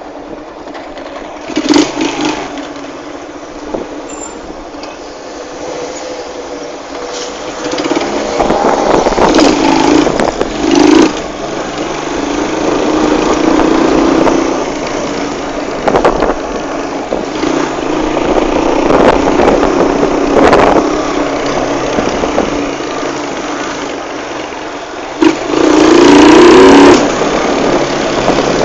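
Motorcycle engine running, revved up in short bursts several times, then held at higher revs about 25 seconds in as the bike pulls away.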